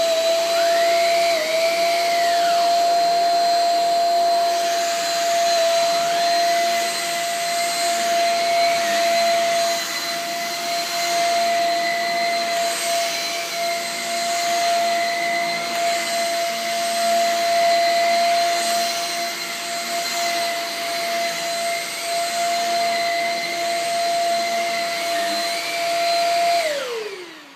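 Shark Rocket corded stick vacuum running on carpet: a steady motor whine over rushing airflow as it is pushed back and forth. Near the end it is switched off and the whine falls in pitch as the motor spins down.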